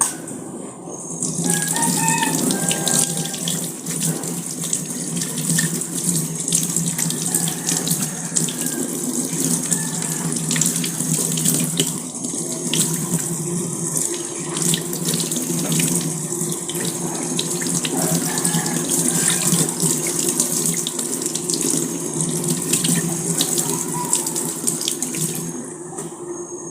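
Water running steadily from a tap into a sink, with small splashes and clicks throughout. It swells about a second in and tails off near the end.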